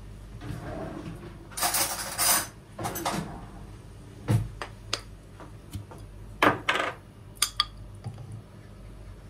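Kitchen clatter while Turkish coffee is being made: a metal spoon clinking and knocking against the coffee pot and other utensils, with a short rustle about two seconds in.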